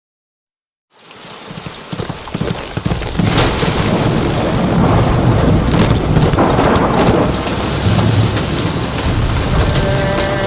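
Heavy rain pouring with a low rumble of thunder, fading in out of silence about a second in and holding steady. Faint music enters near the end.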